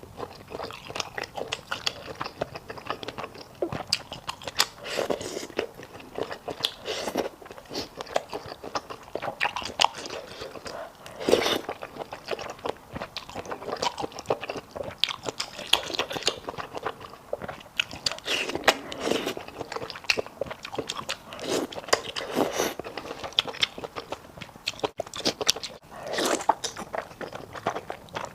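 Close-miked eating of sticky malatang: irregular biting and chewing with crunches and wet mouth sounds, continuous and uneven in loudness.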